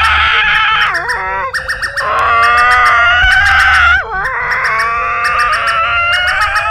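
South Africa emergency alert (EAS) alarm playing: loud, sustained electronic alert tones that slowly rise in pitch, broken twice by quick swooping glides, with rapid clicking over the top.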